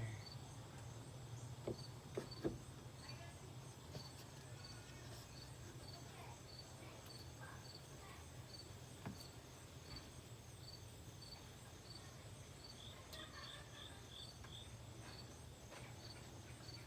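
Quiet room tone with a faint high insect chirp repeating about twice a second, like a cricket, and a few light knocks about two seconds in and once more near the middle.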